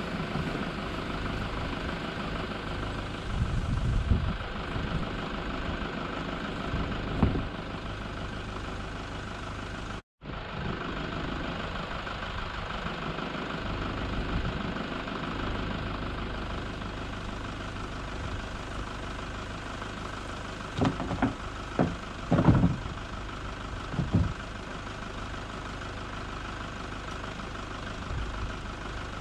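Wind buffeting the microphone: a steady rumble with gusts. There is a brief dropout about ten seconds in and a few short knocks later on.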